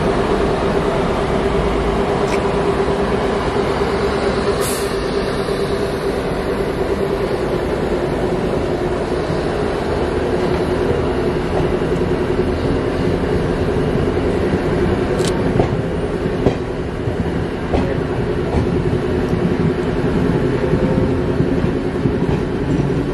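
Indian Railways electric locomotive and passenger coaches rolling past close by: a steady loud rumble of wheels on rail with a droning tone and a few sharp clicks. A brief high hiss comes about five seconds in.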